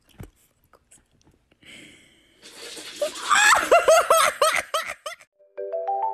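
A run of rapid, high-pitched laughter, about three syllables a second for a couple of seconds. Marimba-style music with a bouncy note pattern starts near the end.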